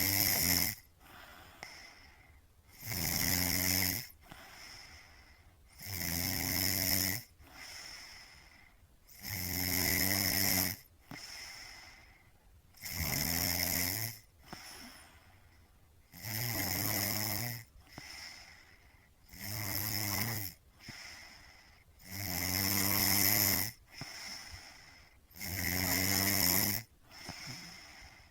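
Snoring in a steady rhythm: a loud snore about every three seconds, about nine in all, with a softer breath between each.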